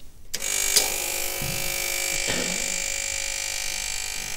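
Espresso machine starting about a third of a second in and running with a steady electric hum while making a double caffe latte.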